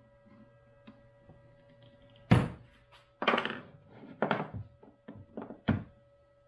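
Steel lathe carriage and cross-slide assembly being handled on a wooden workbench: a loud clunk about two seconds in, then a run of smaller knocks as the metal parts are tilted and set back down. A faint steady hum lies underneath.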